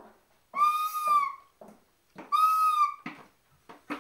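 A child's yellow plastic recorder blown hard: two long high-pitched notes of about a second each, the pitch bending slightly up and then down, with breathy hiss over the tone.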